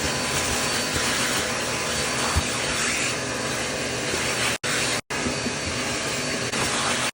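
An electric motor running steadily with an even, hissing whoosh. It breaks off twice for an instant a little past the middle.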